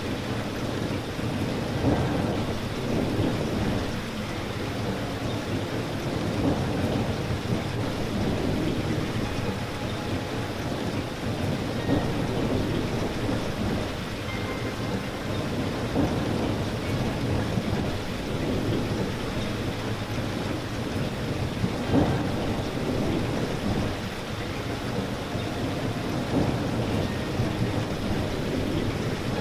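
Steady rain falling, a dense low-pitched patter, with louder individual drops landing every few seconds.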